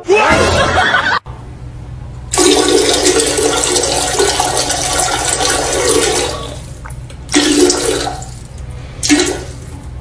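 Toilet flushing: a loud rushing gush of water for about four seconds, then two shorter gushes. Before it, a brief loud noisy sound cuts off suddenly about a second in.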